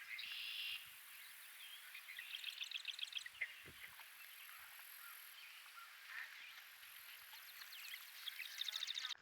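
Songbirds singing faintly: a short buzzy trill at the start, then quick runs of rapidly repeated high notes about three seconds in and again near the end.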